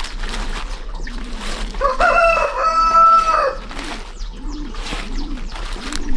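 A rooster crows once, about two seconds in: a long call of almost two seconds that rises, holds and drops at the end. After it come low, repeated cooing calls, about one every half second or so, typical of a dove.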